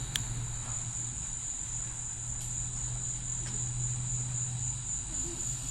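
Steady high-pitched chirring of a cricket chorus, with a low steady hum underneath and a single click shortly after the start.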